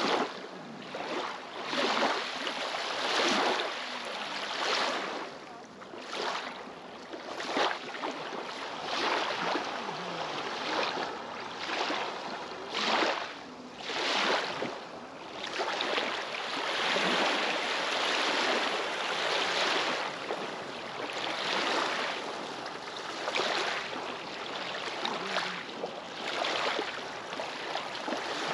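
Small wind-driven lake waves washing and splashing onto a pebble shore, in uneven surges about every one to two seconds.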